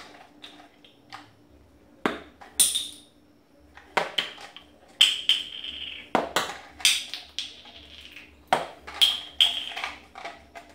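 Peanuts thrown one after another at a cardboard box target, knocking against the cardboard: a dozen or so sharp taps, some in quick pairs, a few followed by a brief high ring.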